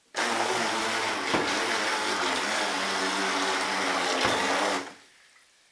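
Electric RC boat's motor running at a steady high speed, a motor whine over a strong hissing rush. It starts abruptly, holds steady for nearly five seconds, then dies away quickly.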